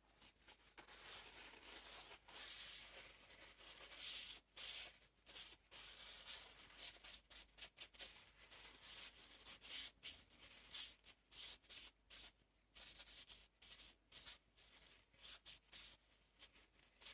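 Aluminium-oxide sharpening stone lapped back and forth on a glass plate in a silicon carbide and oil slurry: a faint gritty scraping in quick, uneven strokes as the stone's face is flattened.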